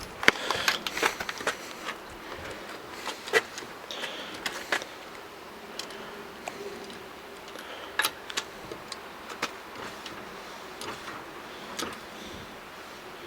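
Scattered light clicks and knocks of hand work on a car wheel, lug nuts and hand tools being handled, with a cluster in the first second and a few sharper knocks later.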